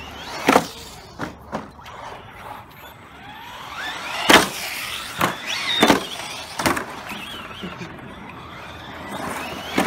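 Electric RC short-course trucks driving on grass, their motors whining up and down in pitch as the throttle changes, with several sharp knocks from the trucks hitting and landing; the loudest knock comes about four seconds in.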